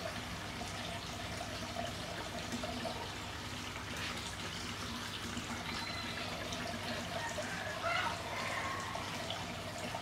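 Steady trickling of running water.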